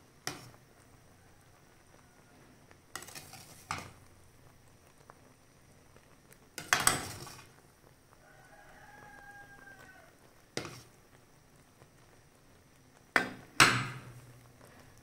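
Metal spoon knocking and scraping against the rim of a stainless steel pot while foam is skimmed off boiling jam. There are several sharp knocks, the loudest about seven seconds in and a quick pair near the end.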